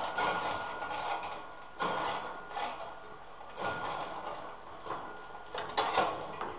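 Hand ratchet clicking in repeated short strokes, pausing between them, as it backs out a screw holding a torpedo heater's radiation shield.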